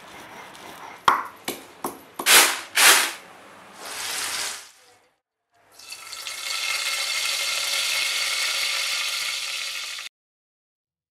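Curry leaves frying in hot oil in a pan. It starts with a run of sharp crackles and pops, then settles into a steady sizzle for about four seconds that cuts off suddenly near the end.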